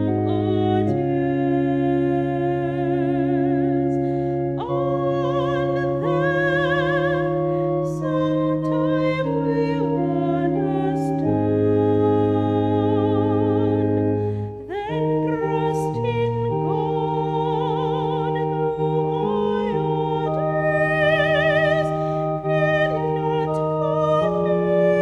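Woman singing a slow hymn solo with vibrato on held notes, over sustained keyboard chords.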